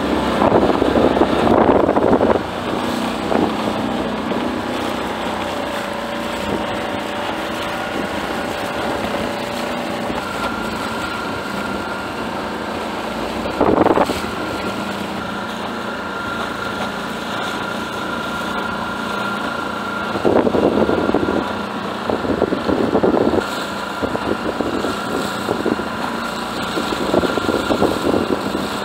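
6 HP Tohatsu outboard motor running steadily, pushing a small skiff through choppy water, with wind gusting on the microphone several times, loudest about a second in and again about two-thirds of the way through.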